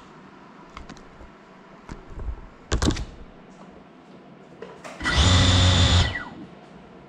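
Small FPV quadcopter crashing, a sharp clatter about three seconds in. A couple of seconds later, while it lies still, its brushless motors spin up with a loud whir for about a second, then cut off with a falling whine.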